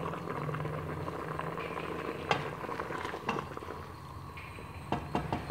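Chicken broth bubbling at a boil in an open aluminium pressure cooker. A spoon stirs it and knocks against the pot: once about two seconds in, again a second later, and three times in quick succession near the end.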